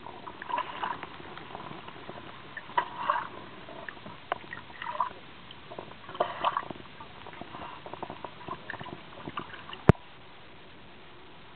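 Water sloshing and gurgling in irregular small splashes, with one sharp click near the end.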